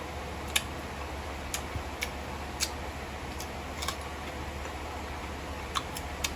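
Eating sounds: irregular sharp clicks of mouth and chewing noises, about nine in a few seconds, over a steady low hum.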